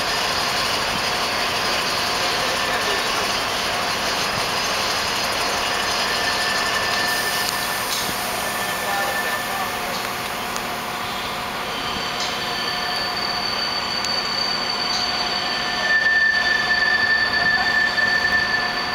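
Mobile cranes' diesel engines running steadily, with a thin high whine that comes in about twelve seconds in and a louder, lower squeal lasting a couple of seconds near the end.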